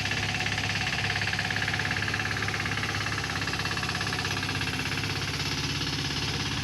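An engine running steadily at idle, a low, even, fast pulsing that does not change.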